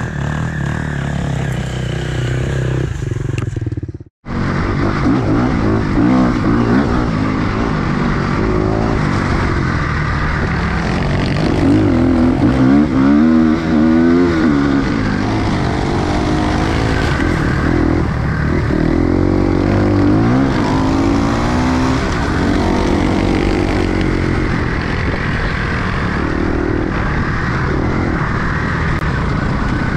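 Enduro motorcycle engine running under way, revving up and down repeatedly as it is ridden. The sound breaks off for an instant about four seconds in.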